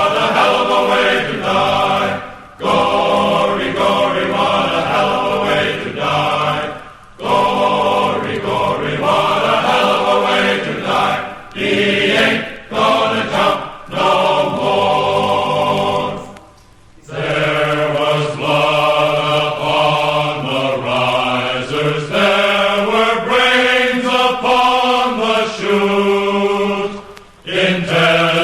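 A choir of voices singing a slow chant-like melody with long held notes, in phrases separated by short breaths.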